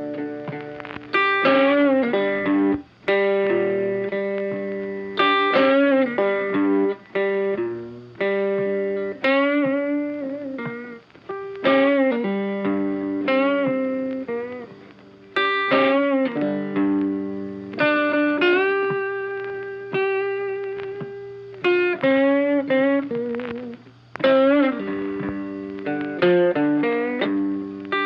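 Background music: a guitar playing a melody with bent and sliding notes.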